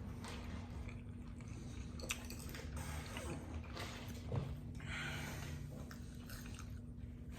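Fast-food eating: people chewing and biting burgers and fries, irregular wet mouth sounds with small clicks.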